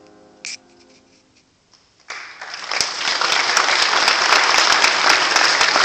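The last grand-piano chord dies away, and about two seconds in the congregation breaks into applause that swells within a second and holds steady.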